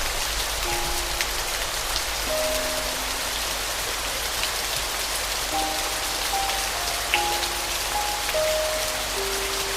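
Steady rain falling, with a soft, slow piano melody of single held notes over it: a few notes at the start, a pause, then a run of notes from about halfway.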